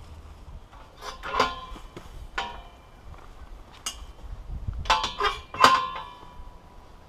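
Metal tubular field gate clanking as it is unlatched and swung, with a series of sharp metallic clanks. The loudest comes near the end and rings on, fading over about a second.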